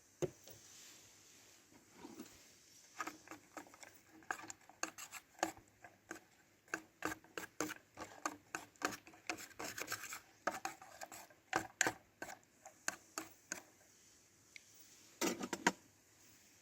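Light clicks and taps of cookware and utensils being handled, a quick irregular run of small knocks lasting several seconds, with a short louder cluster near the end.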